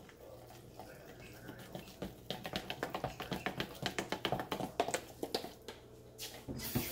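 A utensil stirring pancake batter in a plastic measuring cup, tapping quickly against the cup in a fast run of clicks for a few seconds after a quiet start. A short burst of rushing noise follows near the end.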